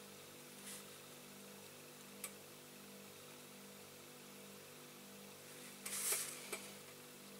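Quiet room tone with a faint steady hum, broken by a couple of small clicks and, about six seconds in, a short burst of scraping and clicking from small parts being handled at the workbench.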